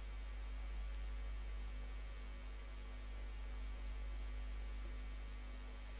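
Steady low electrical mains hum with a faint even hiss.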